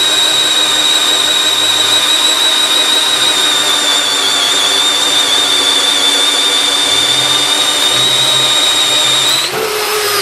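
Bosch GSB 18V-EC brushless cordless drill boring a 1¼-inch spade bit into a block of wood: a steady high motor whine held down under load. Near the end the pitch rises briefly as the load eases, and the drill stops.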